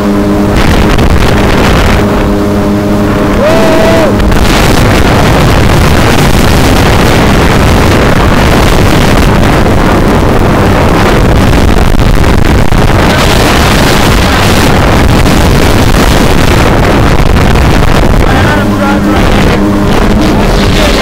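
Jet ski engines running at speed, with heavy wind rush on the microphone. A steady engine hum stands out in the first few seconds, rising briefly in pitch around four seconds in. The hum returns near the end; in between, the wind noise covers it.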